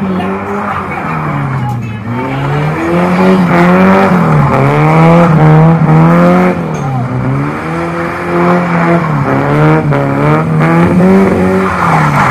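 Toyota KE70 Corolla's engine revving hard, its pitch climbing and dropping several times, with tyres squealing as the car slides around the cones.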